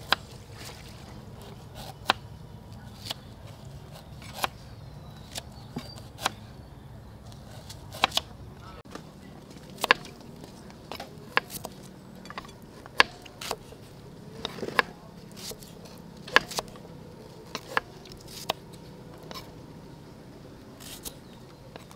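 Kitchen knife cutting red shallots on a thick round wooden chopping board: irregular sharp taps of the blade hitting the wood, about one or two a second.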